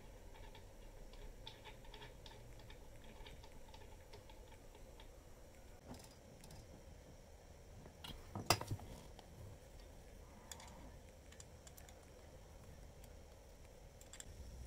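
Faint clicking and light knocking from hands adjusting and handling an angle grinder sliding stand and its mounted saw blade, with one louder clattering knock a little past halfway through.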